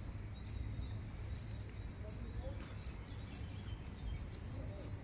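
Outdoor garden ambience: a steady low rumble with scattered short bird chirps throughout.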